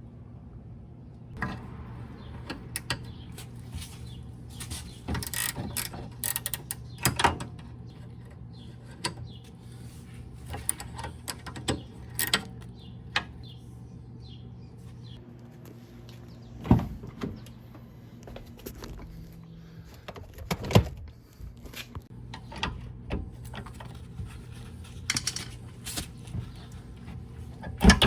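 Hand tools working on a car's rear brake assembly: scattered metal clicks and knocks, a few sharper ones standing out, over a steady low hum.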